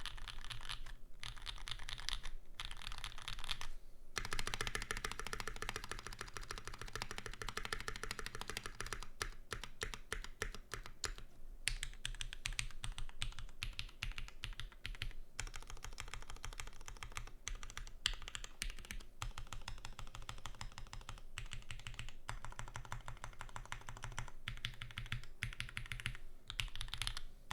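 Fast continuous typing on a custom 65% mechanical keyboard with lubed SP Star Meteor Orange linear switches, an aluminium plate and GMK keycaps: dense runs of key clacks broken by short pauses. The typing stops just at the end.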